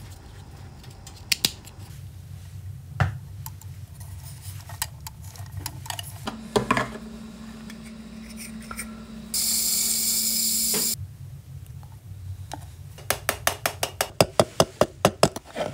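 Workshop tool and parts-handling noises: scattered clicks and taps, a low hum from about six seconds in, and a steady hiss of about a second and a half that stops together with the hum. A quick run of clicks follows near the end.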